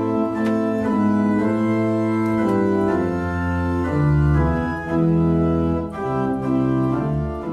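Organ music: a slow run of held chords over deep bass notes.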